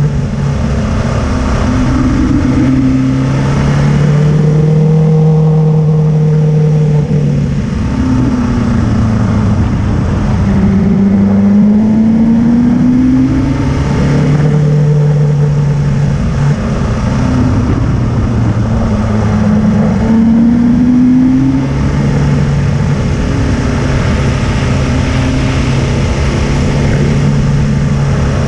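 Motorcycle engine pulling up a climb, its pitch holding, dropping and rising again several times with throttle and gear changes, over a low rumble of wind and road noise.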